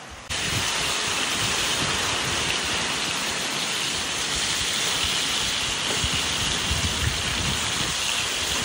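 Pieces of fish sizzling steadily as they fry in hot oil in a cast-iron kazan, a loud hiss that cuts in abruptly just after the start.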